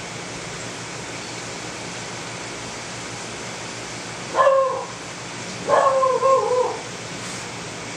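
Two whining calls over a steady hiss: a short one just past the middle, then a longer, wavering one about a second later.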